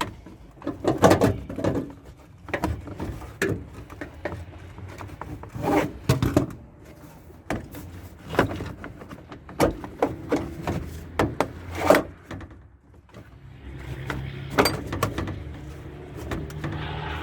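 Irregular knocks, thumps and scraping of wood and parts being handled and shifted inside a pickup cab. The loudest knocks come about a second in, near six seconds and near twelve seconds, and a low steady hum joins in from about fourteen seconds.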